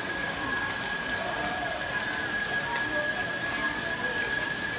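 Steady rush of water in a seal pool enclosure, with a constant high-pitched tone throughout and faint voices in the background.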